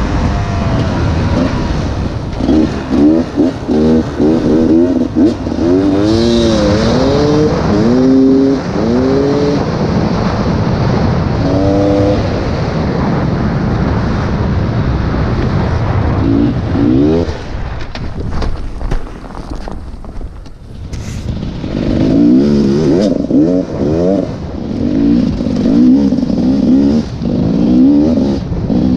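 Enduro motorcycle engine revving up and down again and again as the rider works the throttle. The engine drops to a lower, quieter note for a few seconds past the middle, then revs repeatedly again.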